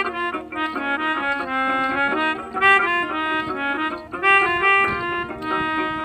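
Instrumental interlude of a Bengali Baul folk song: a melodica plays a reedy sustained melody over a plucked ukulele and a khamak drum.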